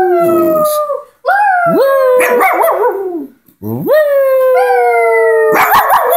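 Shih tzu howling: the end of one howl, then two long howls. Each sweeps up sharply, holds a slowly falling pitch, and breaks into a wavering yodel at its end.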